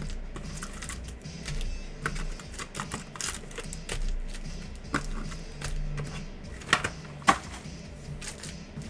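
Stiff chrome trading cards being flipped and slid through by hand, making a scattered run of light clicks and snaps. Two louder snaps come about seven seconds in.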